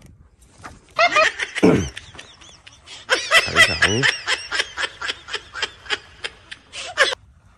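Baitcasting reel's drag paying out line in rapid pulses as a hooked fish runs and shakes, about four pulses a second, its pitch sliding down and back up as the spool slows and speeds.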